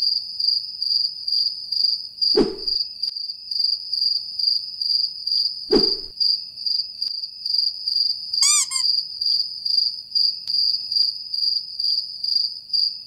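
Cricket chirping, a steady high trill pulsing about three times a second. Two short low knocks come a few seconds apart, and a brief high call is heard midway.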